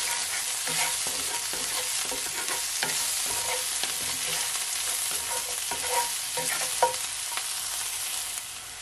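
Diced onion and ginger sizzling in oil in a skillet, a steady hiss, while a wooden spatula stirs them, scraping and tapping against the pan.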